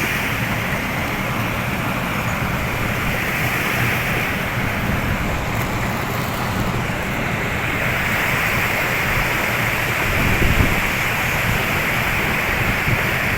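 Steady rushing noise with no distinct events, and a brief louder low rumble about ten seconds in.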